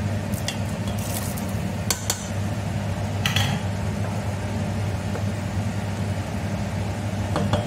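Steel saucepan and cooking utensils knocking and clinking a few times as butter beans are added to a simmering tomato stew and stirred in with a wooden spoon, over a steady low hum.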